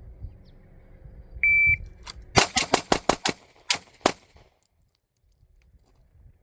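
Shot timer beeps once with a steady high-pitched tone. A pistol fires a six-shot Bill drill string about a fifth of a second apart, the first shot coming just under a second after the beep. After a short pause, two more shots follow about a third of a second apart.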